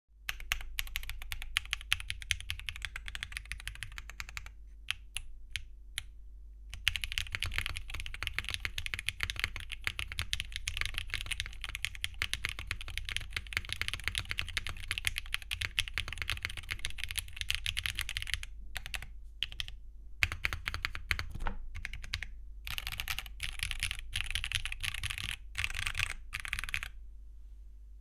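Mechanical keyboard typed on fast: Akko Botany linear switches in a foamless Mode Envoy case with copper plate and copper weight, under Cherry-profile ABS keycaps. The rapid clatter of keystrokes twice thins to a few separate presses and stops near the end.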